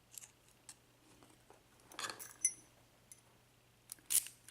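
Brass euro cylinder lock and its key being handled: a few light metallic clicks and clinks, with a short scrape about two seconds in and a louder clink near the end.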